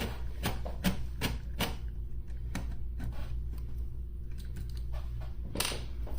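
Irregular light clicks and taps of a screwdriver working the small Phillips screws that hold the radio's cassette mechanism, with one louder knock near the end.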